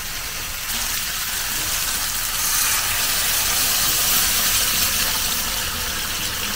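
Water poured from a mug into a hot frying pan of fried onions and tomato sauce, hissing and sizzling as it hits the pan. The hiss swells about a second in and keeps going as the sauce comes back to a bubble.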